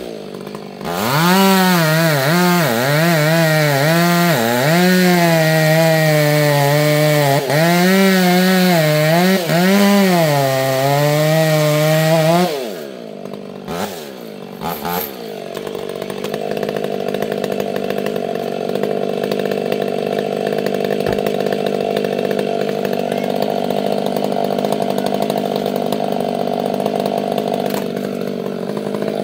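Two-stroke chainsaw running at high revs, its pitch rising and falling repeatedly as it cuts into wood. About twelve seconds in it drops off, and a steadier, quieter engine drone carries on.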